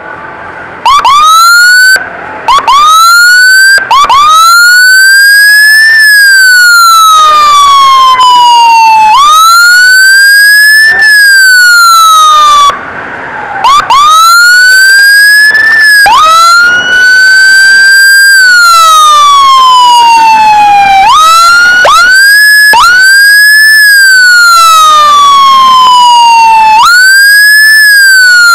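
Emergency siren, very loud, starting about a second in and cutting out briefly a few times. Each sweep jumps up quickly and then falls slowly, the sweeps uneven and one to three seconds long.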